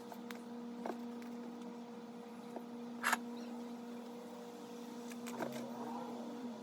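A steady hum with a few sharp clicks, the loudest about three seconds in.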